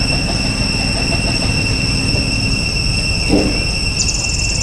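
Steady low engine rumble with a hum that stops a little past halfway, under a constant high-pitched insect drone. A fast ticking trill comes in near the end.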